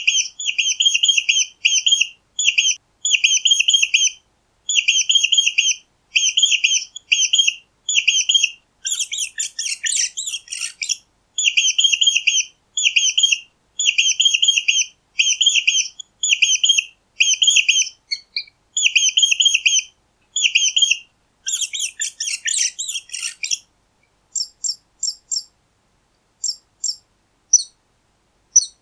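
Mice squeaking: rapid trains of high-pitched squeaks in short bursts with brief gaps, broken twice by denser, rougher squealing, then only sparse single squeaks near the end.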